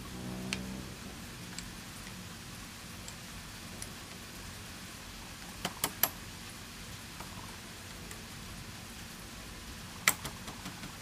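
A few sharp metal clicks and clinks from the rear wheel and axle parts of a Honda motorcycle being handled and refitted by hand: three close together about halfway through and a louder one near the end, over a steady hiss.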